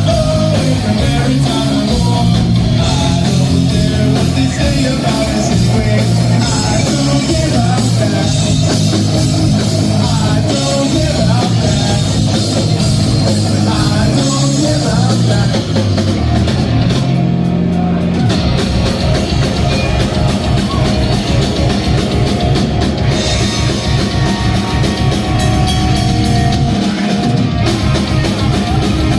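Rock band playing a medley: drum kit, electric guitars and singing, running continuously at a steady loud level.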